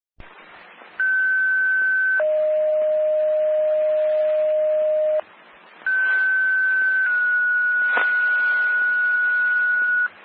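Fire dispatch two-tone sequential paging tones over a scanner radio, with radio hiss. A higher tone of about a second steps down to a much lower tone held about three seconds. After a short gap comes a second pair: a high tone of about a second dropping slightly to a tone held about three seconds, with a click near its start.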